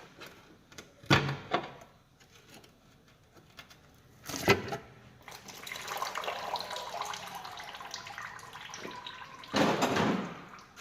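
Two sharp knocks of tools on metal, then cleaning liquid sprayed in a steady hiss onto the gearbox casing for about five seconds, louder for a moment near the end.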